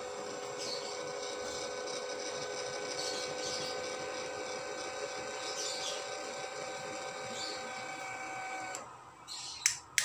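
12 V DC linear actuator running, its small motor and gearing giving a steady whine as the rod extends, then stopping abruptly about nine seconds in. A sharp switch click follows shortly before the end.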